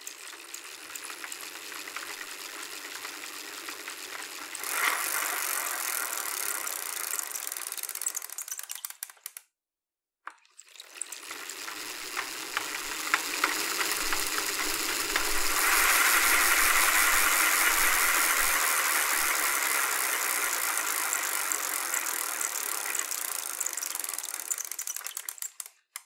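Bicycle being ridden, its rear freewheel's pawls clicking rapidly over a steady whir. The sound cuts out for under a second about a third of the way in, then builds up again, peaks and fades away near the end.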